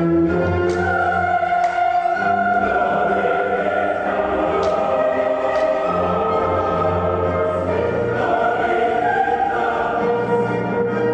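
Classical choral music: a choir singing long held notes over an orchestra.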